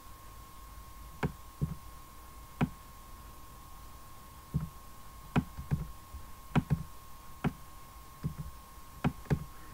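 Computer mouse button clicking: about a dozen short sharp clicks at uneven intervals as strokes are drawn with the mouse. A faint steady whine runs underneath.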